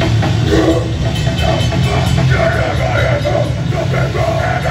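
Live rock band playing loud, with electric guitar, bass guitar and drum kit together in a steady, continuous run.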